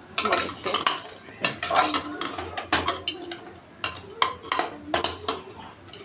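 A metal spoon scraping and knocking irregularly against the inside of an aluminium pressure cooker while mutton and masala are stirred and fried.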